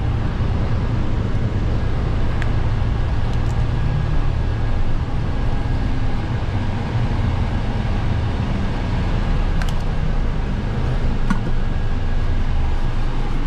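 Bus engine and road noise heard from inside the cabin of a moving bus: a steady low rumble, with a few faint clicks.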